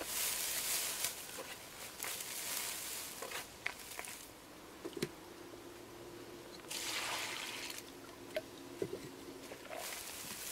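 Straw rustling and squelching in wet clay as cob is mixed by hand in a wheelbarrow, in several bursts with small clicks. About seven seconds in, a bucket is poured into the barrow.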